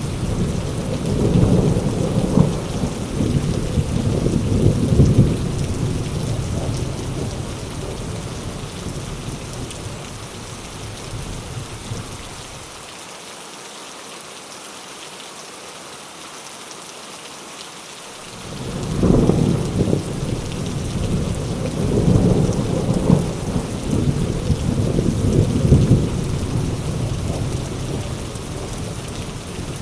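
Steady heavy rain with rolling thunder. One long rumble of thunder fades away over the first dozen seconds, leaving the rain alone for a few seconds. A second peal breaks in about two-thirds of the way through and rumbles on, easing off near the end.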